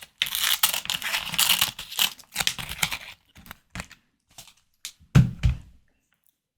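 Close-miked eating of a prawn cocktail: dense crackly, wet mouth and handling sounds for the first couple of seconds, then scattered clicks and a loud low thump about five seconds in.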